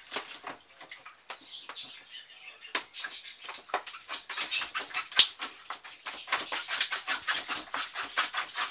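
Border collie puppy splashing about in shallow water in a plastic storage tub, with a run of quick, irregular splashes and patters.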